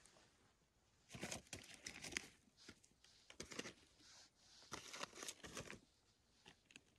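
Faint rustling and crinkling of dry leaf litter and moss on the forest floor being disturbed, in three short bouts and a last small one.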